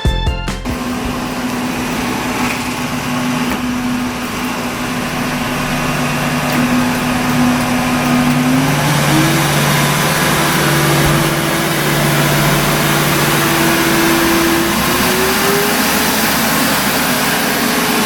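Samsung Powerbot VR20M7070WD robot vacuum's suction motor running with a steady rushing noise. Its whine glides up to a higher pitch twice, about halfway through and again near the end, as it steps up through its suction power settings.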